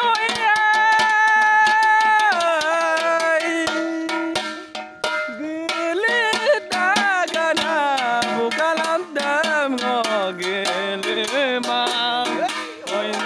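A man's singing voice holding long notes and gliding between pitches, over fast clattering percussion of steel plates being struck.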